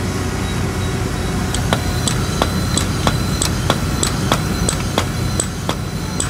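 Hydraulic bolt-tensioning pump running under a steady low rumble; about a second and a half in it starts stroking with sharp, even clicks about three a second and a faint high whine as it builds pressure.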